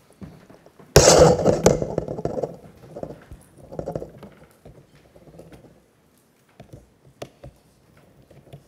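Handling noise from a laptop and its cable being set up at a lectern: a loud bump and rustle about a second in, then scattered small clicks and knocks as the cable is plugged in.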